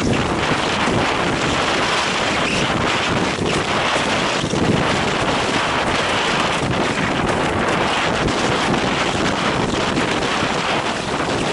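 Strong wind buffeting the microphone of a camera on a windsurfing rig, a loud steady rush, with the hiss of the board skimming over choppy water and a few faint knocks from the chop.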